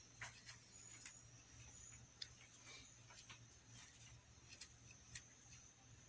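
Near silence with faint, scattered light clicks of hands working a crochet hook through thread.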